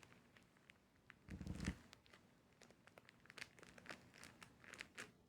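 Faint crinkling and rustling of craft materials being handled, in scattered short crackles, with one soft thump about a second and a half in.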